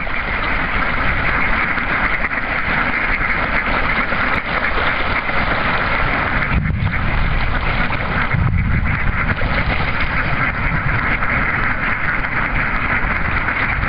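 A large flock of mallards quacking and chattering in a dense, continuous din, with splashing on the water. Around the middle the chatter briefly dips twice under a low rumble.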